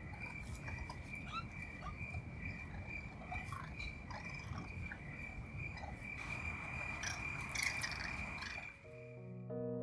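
Night ambience: a steady, high insect trill over a low rumble, with scattered short chirps and clicks. About nine seconds in, this gives way to gentle music.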